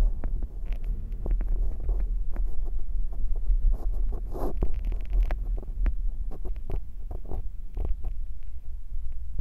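Low, throbbing rumble inside a moving car, with scattered light clicks.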